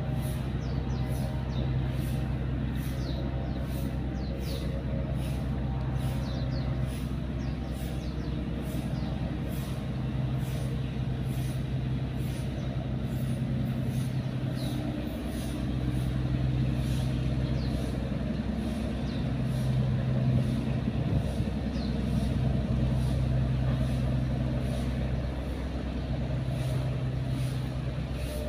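A steady low mechanical hum, like a running motor or engine, with a faint regular high pulsing throughout.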